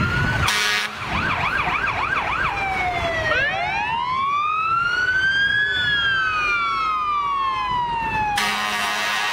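Fire truck siren sounding: a rising wail, a short run of fast yelping, then a long slow wail that rises and falls. A short air-horn blast comes about half a second in, and a longer one near the end.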